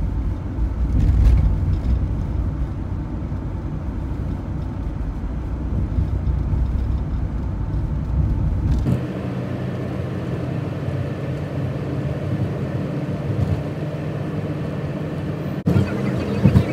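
Cabin noise of a camper van on the move: steady engine and tyre rumble. It changes character abruptly about nine seconds in, and there is a sharp click with a couple of knocks near the end.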